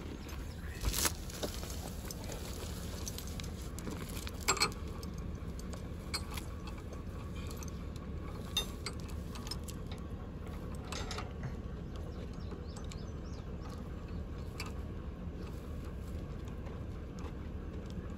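Steel chain clinking as it is handled and hooked onto a vehicle's rear hitch: a handful of sharp metallic clinks, the loudest about a second in and again around four and a half seconds, over a steady low background noise.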